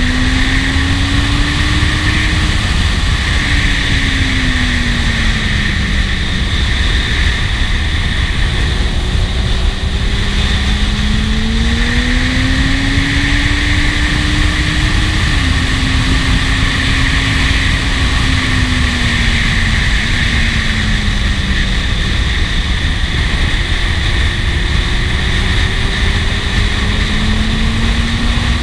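Kawasaki Z750 S motorcycle's inline-four engine running under way, its note rising and falling slowly as the throttle is opened and eased through the bends, with a brief dip about halfway through. Heavy steady wind rush on the helmet-mounted camera runs under it.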